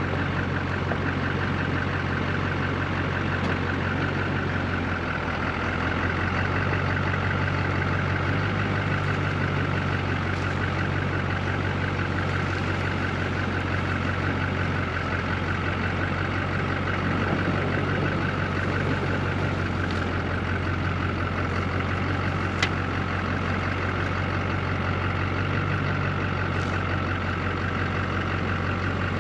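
An engine running steadily at an even speed, with one sharp tick about 22 seconds in.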